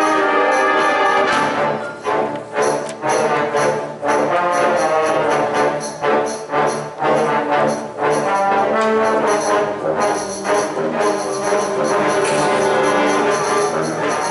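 Concert wind band playing, brass to the fore, with trombones and trumpets. Sharp accented chords and percussion hits come in quick succession through the middle, then the band settles into fuller held chords.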